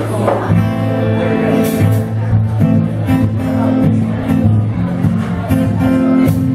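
Live band playing a country-rock song: electric and acoustic guitars and drums, with a moving low line under the guitars and regular cymbal strokes.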